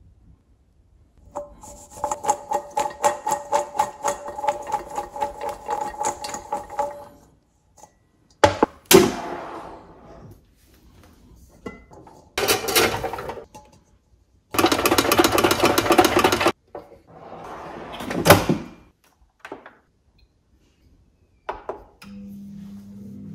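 Raw oiled potato fries tossed in a stainless-steel bowl with a metal spatula: a quick run of scraping strokes, with the bowl ringing. Then the fries are tipped into the air fryer's basket in a few bursts of rustling and clatter, with sharp knocks between. Near the end a click comes from the Philips Airfryer XXL's control dial, and a low steady hum starts.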